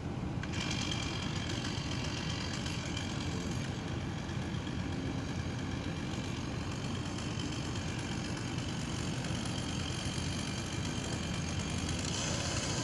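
An engine running steadily, with a higher whine that comes in about half a second in and grows stronger near the end.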